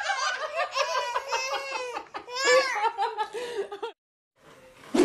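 Twin babies laughing in high, repeated giggles and belly laughs while being tickled, cutting off suddenly about four seconds in.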